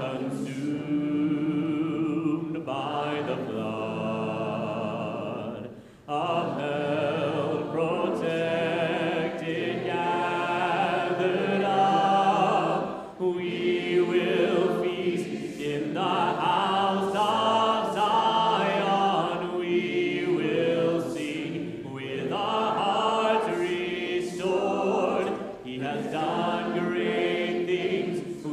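Congregation singing a hymn a cappella, voices only and in parts, led by a man singing into a microphone. The singing dips briefly between phrases about 6 and 13 seconds in.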